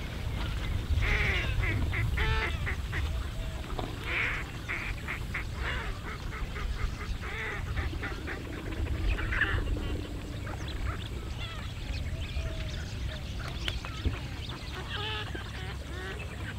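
Waterfowl calling in several runs of rapid, harsh, pulsed calls, over a steady low rumble.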